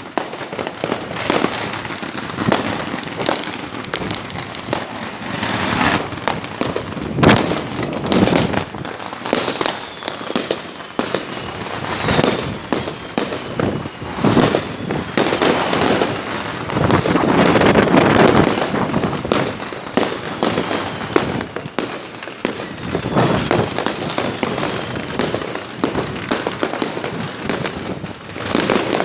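Fireworks and firecrackers going off nonstop, many sharp bangs and crackles overlapping, with a few falling whistles in the middle and later.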